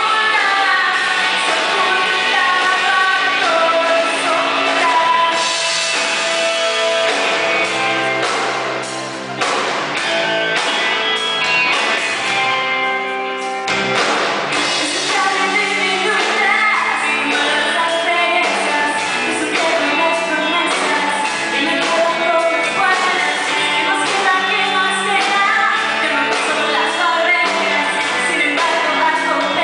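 Indie rock band playing live, with electric guitars, bass and drums under a woman singing.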